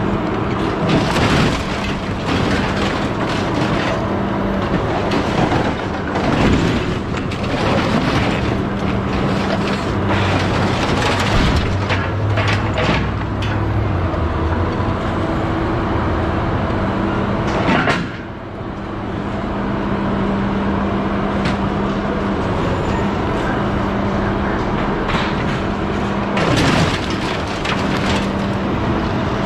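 A heavy machine's engine runs steadily while scrap metal clatters and bangs, with the loudest crashes about a second in, around 6 to 7 seconds in and near the end.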